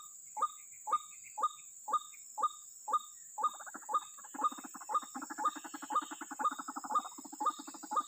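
White-breasted waterhen (ruak-ruak) calling: short, falling calls repeated evenly about twice a second. About three seconds in, a fast, pulsing croaking chorus joins them.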